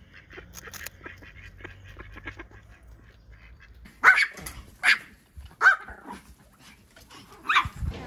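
Small spitz dogs (Pomeranians) barking: four sharp, high barks starting about halfway through, spaced roughly a second apart, after a few seconds of faint clicking.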